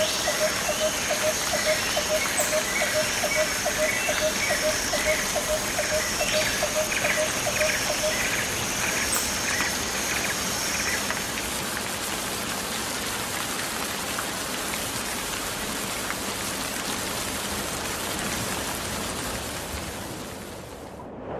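Outdoor nature ambience: a steady hiss, with a bird repeating a low note about three times a second, a higher pulsing call, and a thin high insect trill. The calls stop about ten seconds in, and the hiss fades near the end.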